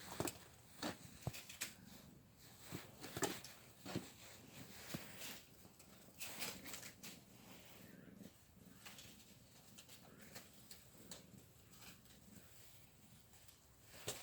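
Light taps and knocks of a small ball being rolled and batted back and forth along the floor between a person and a cat, with more of them in the first half.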